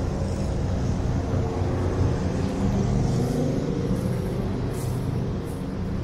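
Steady low engine rumble with a constant hum, running without a break.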